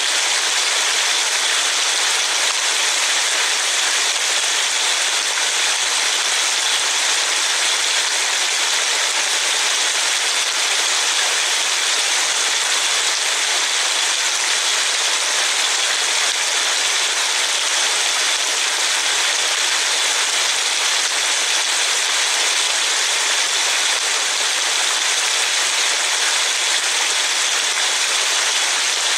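Steady rain falling: an even hiss with no breaks or separate drops standing out.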